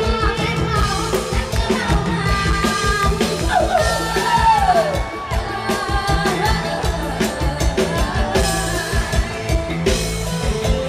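Live Thai mor lam band music amplified through a PA, with a woman singing into a microphone over a steady drum beat.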